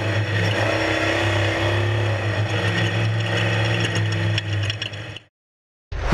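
Off-road race vehicle engine running steadily with a mechanical whine, cutting off abruptly to silence about five seconds in.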